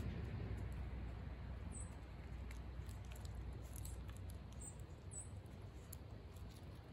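Striped skunk eating peanuts and seeds from a plate: scattered small clicks and crunches, over a low rumble that fades away.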